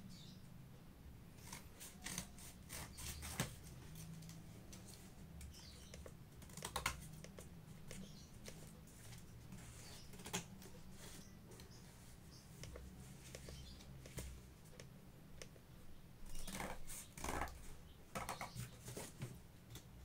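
Scattered small clicks and taps with a few brief rustles, more of them bunched together near the end, over a steady low hum.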